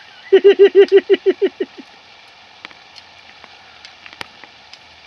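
A person close by laughing in a quick run of about ten short 'ha' bursts, loud at first and fading out within under two seconds.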